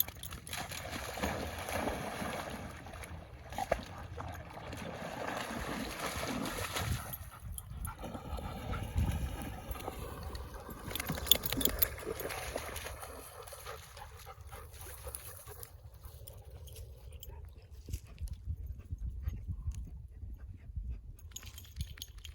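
Dogs moving about, with noisy breathing and small whines. A steady hiss lasts for about the first thirteen seconds, then drops away.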